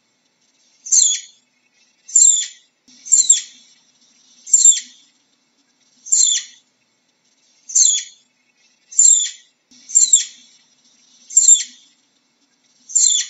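Flying squirrel calling: a series of about ten short, high-pitched chirps, each sliding down in pitch, spaced a second or so apart.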